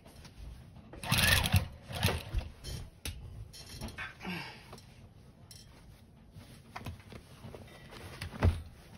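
Domestic sewing machine stitching in short bursts through thick layered denim, the loudest burst about a second in, with the fabric shifted between bursts. A single sharp low thump near the end.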